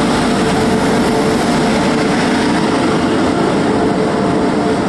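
Indian Railways WAP-7 electric locomotive and the coaches behind it: a steady, loud rumble with a constant hum running through it.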